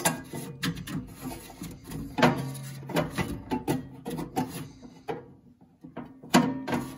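Handling noises as the pellet stove's combustion blower motor wires are worked across the sheet-metal heat shield and housing: irregular scrapes, rubs and light knocks of wire and metal, loudest about two seconds in and near the end.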